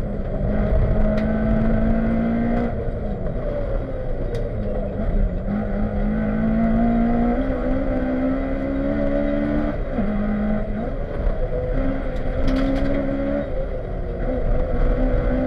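Honda Civic rally car at speed, heard from inside the cabin: the engine is worked hard, its note breaking off and climbing again several times through gear changes, over a constant low rumble of road and tyre noise. A few sharp knocks come through now and then.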